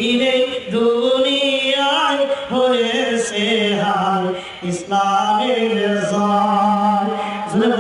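A man singing a Bengali Islamic song (gojol) solo into a PA microphone, drawing out long, wavering held notes.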